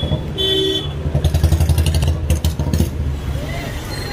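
Street traffic: a motor vehicle engine, most like a motorcycle, running close by with a low rumble that swells and pulses for about two seconds in the middle, then eases back.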